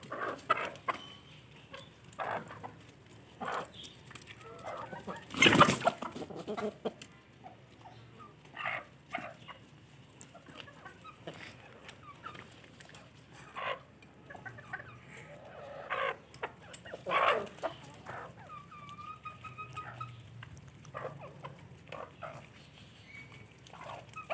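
Backyard hens and a rooster clucking and calling on and off while they peck at chopped spinach, with one drawn-out steady call about two-thirds of the way through. A loud sudden knock about five seconds in is the loudest sound.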